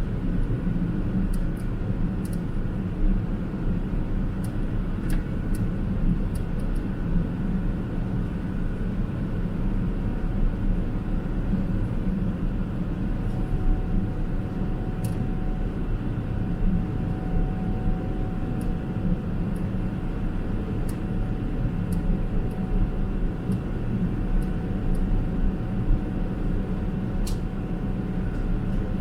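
Steady, even rumble of a Boeing 777-300ER's GE90-115B engines heard inside the passenger cabin, with a few faint steady tones over it. Scattered light clicks and rattles of cabin fittings sound here and there.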